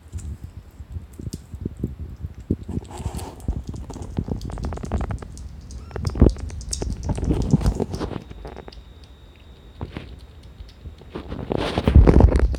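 Irregular soft taps, clicks and knocks of a kitten licking and nosing a small dish of weaning food on a tatami mat, mixed with rustling from the phone being handled. A louder rustle with thumps comes near the end.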